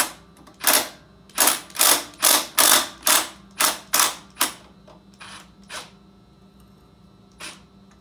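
Ratchet wrench clicking in short strokes, about two a second for the first four and a half seconds, then a few spaced strokes, as a bolt is turned while setting the chain tension on a mini bike.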